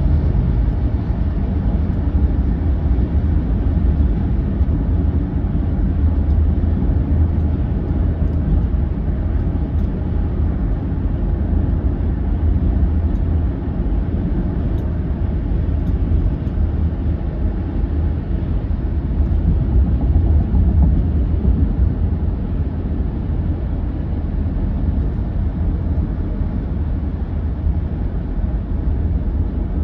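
Steady road noise of a car travelling at highway speed, heard from inside the cabin: a constant low rumble with no breaks.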